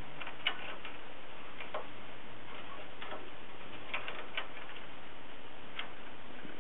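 A hamster climbing in its cage: a handful of small, irregular clicks and ticks as it grips and moves on the cage, over a steady background hiss.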